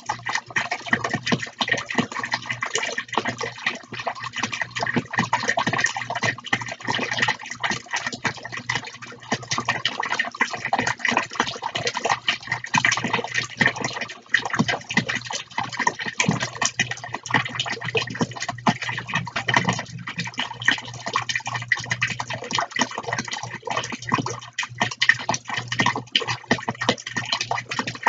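Water from two small tabletop fountain jets splashing steadily back into their plastic basins, with a steady low hum underneath.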